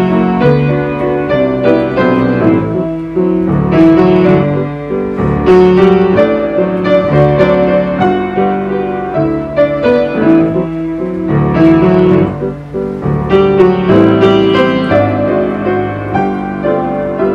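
Piano music: a sequence of struck, sustained notes and chords.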